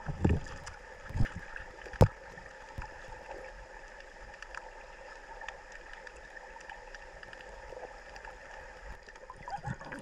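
Underwater sound of a mountain stream picked up by a camera held below the surface: a steady hiss with faint steady tones, broken by a few knocks in the first two seconds, the sharpest about two seconds in. Water movement picks up near the end.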